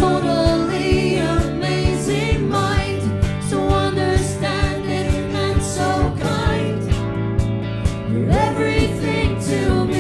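Live rock band playing: a woman singing the lead melody over electric guitar, bass guitar and a steady drum beat.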